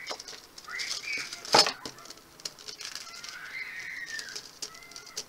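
A single sharp tap about a second and a half in, with faint high chirps in the background.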